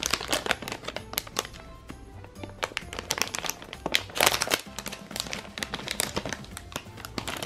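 A shiny plastic My Little Pony blind-bag packet crinkling and crackling in the hands as it is turned over and squeezed, with light background music underneath.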